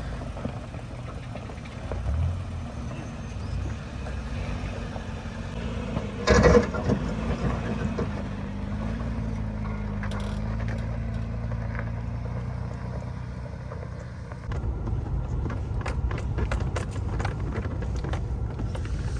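Off-road vehicle engine running steadily on a rocky trail, with one loud knock about six seconds in. In the last few seconds it grows louder, with a run of sharp clicks and knocks.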